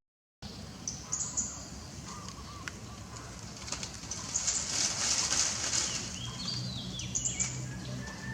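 Outdoor background: a steady low hum and hiss, with a few short high chirps and a hiss that swells in the middle. The sound drops out completely for a moment at the start.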